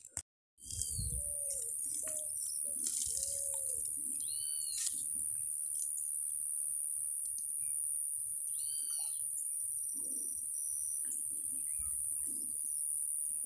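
Riverside birds calling: repeated low arching calls and a few higher short chirps, over a steady high-pitched whine.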